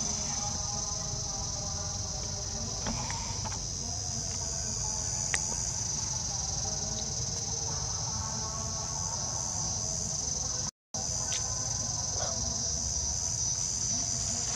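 Steady, high-pitched chorus of insects, with a low rumble underneath and a few faint clicks; the sound cuts out briefly about eleven seconds in.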